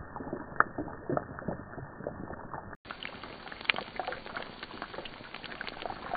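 Battered barramundi fillets frying in hot oil in a pan, the oil sizzling with a dense, irregular crackle of small pops.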